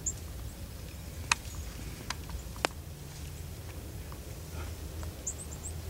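Quiet outdoor background with a steady low rumble, broken by two sharp clicks about a second and a half apart, with a few faint high chirps near the end.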